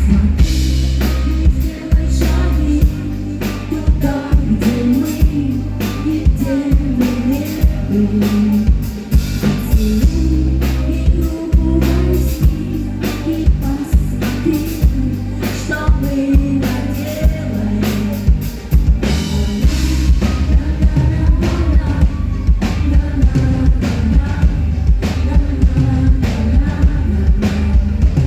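Live rock band playing a song: a singer's voice over a drum kit keeping a steady beat, bass and guitar.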